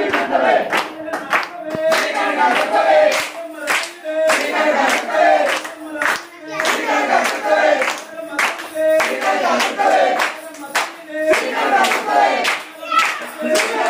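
A group of devotees sings a devotional bhajan, chanting the goddess's names, while clapping hands together to a steady beat.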